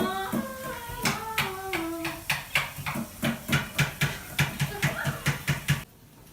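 Background music: a melodic song continuing, then a quick steady beat of about four hits a second that cuts off abruptly near the end.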